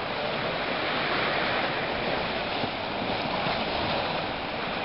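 Steady rush of choppy moving water, an even noise without distinct splashes.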